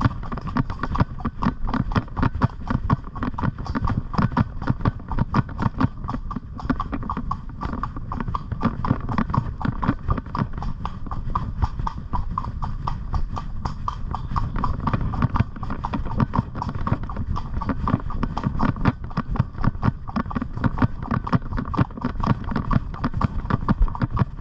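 A pony's hoofbeats clip-clopping in a quick, steady rhythm as she is ridden.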